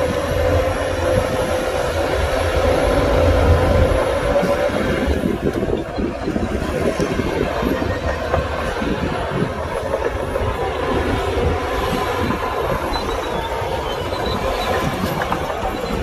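Heavy diesel earthmoving machinery working: a steady engine drone with a held whine for the first few seconds, then irregular clanking and rattling of metal.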